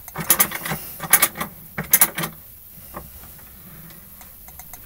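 Bench vise being cranked shut on a 3D-printed ABS part: a quick series of clicks and knocks from the turning handle and screw for about two seconds, then only a few faint ticks.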